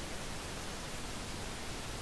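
Steady white noise for sleep: an even hiss with no tones, rhythm or change.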